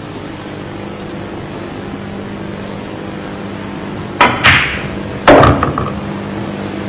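Pool cue tip striking the cue ball about four seconds in, then a louder clack of billiard balls colliding about a second later, over a steady low hum.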